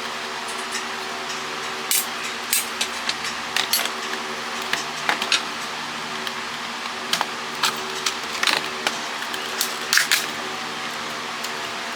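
Irregular sharp plastic clicks and snaps as a cordless phone's plastic housing is handled and pried apart, starting about two seconds in, over a steady background hum.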